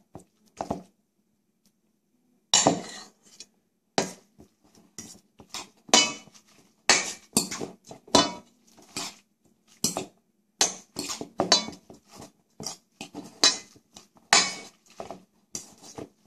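A metal utensil clinking and scraping against a stainless steel mixing bowl as spaghetti is stirred into the carbonara sauce. Irregular strikes, one or two a second, with a short pause about a second in.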